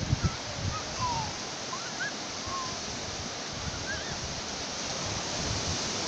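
Sea surf: small waves breaking and washing up the beach, a steady rush, with a few wind thumps on the microphone in the first moment.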